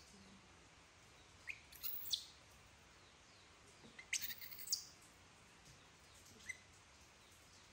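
Baby macaque giving a few short, high-pitched squeaks that come in two clusters, with a fainter one later.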